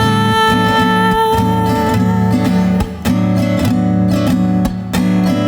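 A woman's singing voice holds a long final note on "vuela" over strummed acoustic guitar in a Chilean tonada. The note fades out about two and a half seconds in, and the guitar strumming carries on alone.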